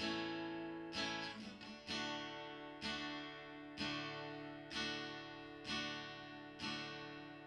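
Quiet background music: an acoustic guitar strumming chords about once a second, each chord left to ring and fade.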